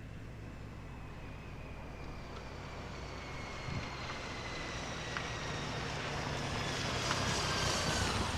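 Motorcycle towing a small camping trailer approaching along a curve, its engine and road noise growing steadily louder, with a faint high whine that slowly falls in pitch.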